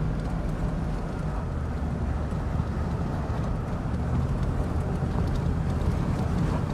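GMC vehicle being driven: a steady, low engine and road drone.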